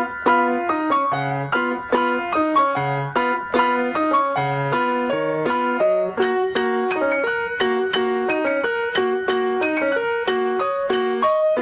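Piano playing a simple repeating tune at about four notes a second, over a low bass note that returns about every second and a half.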